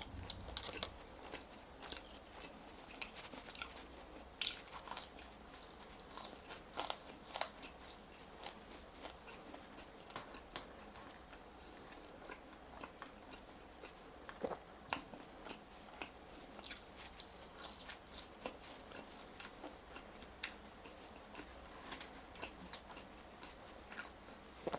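A person chewing and biting crispy french fries, with irregular crunches and sharp mouth clicks throughout.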